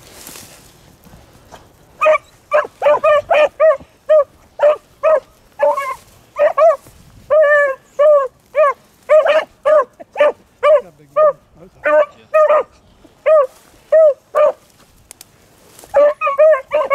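Beagles baying on a rabbit's scent line, giving tongue in short, quick barks a few per second. The barking starts about two seconds in, pauses briefly near the end, then starts again.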